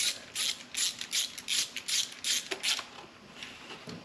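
Hand ratchet clicking in quick repeated back-strokes, about two to three strokes a second, as the 13 mm screws holding a Time-Sert drill-guide plate to an engine block are run down. The clicking stops about three seconds in.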